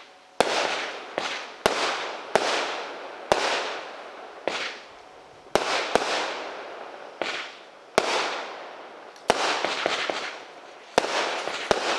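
32-shot firework barrage cake firing shot after shot: about a dozen sharp bangs at uneven intervals, each followed by a fading hiss.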